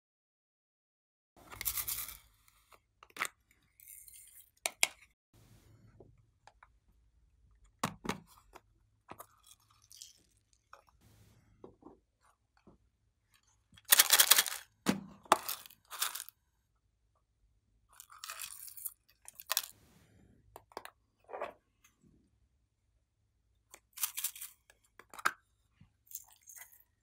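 Small plastic toy containers being handled and opened: scattered clicks, snaps and crinkling of plastic, in short bursts with quiet gaps, loudest about halfway through.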